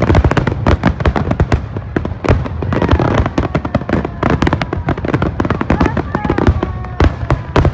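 Fireworks going off: a dense, continuous run of sharp bangs and crackles, many a second, loud throughout.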